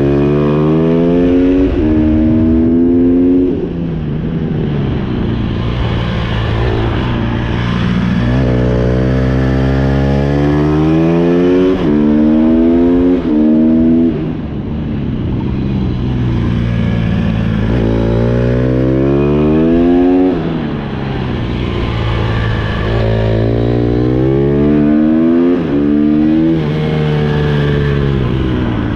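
Honda CRF150R's four-stroke single-cylinder engine being ridden hard around a track: it revs up with quick dips in pitch at each upshift, then falls away as the throttle is closed, several times over.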